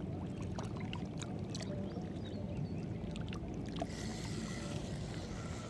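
Water lapping against a small fishing boat's hull over a steady low rumble, with scattered small clicks. About four seconds in, a hiss and a faint thin high tone come in.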